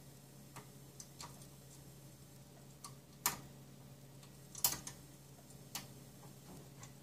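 Small sharp clicks and ticks, about eight at irregular spacing with the two loudest around the middle, as a desoldered DRAM chip is wiggled on a circuit board to break its pins loose from the through-holes.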